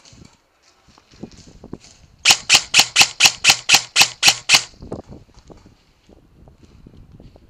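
Airsoft electric rifle, a VFC HK416 AEG, firing a string of about eleven shots in quick succession, about five a second, a couple of seconds in. Faint clicks and rustling of gear before and after.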